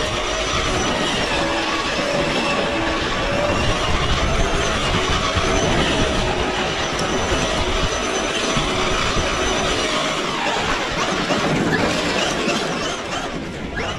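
Traxxas XRT 8S RC monster truck running hard on dirt: the brushless electric motor and drivetrain whine steadily under the rush of spinning tyres and flung dirt, the whine shifting in pitch as the throttle changes. Near the end the whine glides and the sound drops a little.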